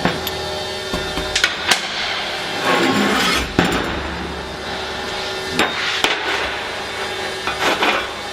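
Hammer striking metal parts several times at irregular intervals, with scraping and clinking of the parts between strikes.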